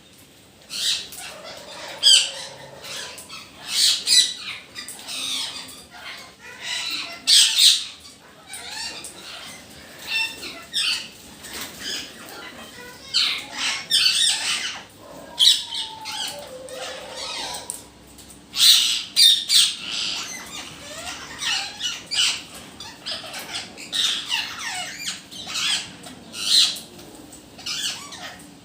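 Parrots squawking, many harsh shrill calls overlapping in irregular bursts with brief lulls between them.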